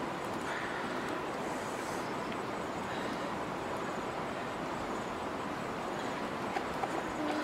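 A steady, even rushing noise, with a few faint short clucks near the end.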